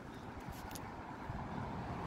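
Low, steady road-traffic rumble with a few faint clicks about half a second in, growing slightly louder near the end.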